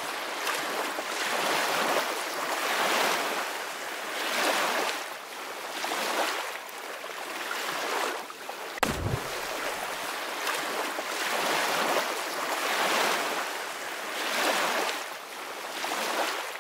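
Water sound effect of waves washing, swelling and ebbing every second or two, with one sudden low thump just under nine seconds in.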